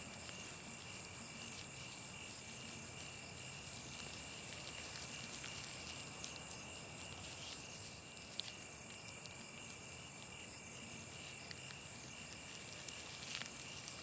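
Insects chirring steadily in a continuous high-pitched, fast-pulsing drone, with a few faint ticks scattered through it.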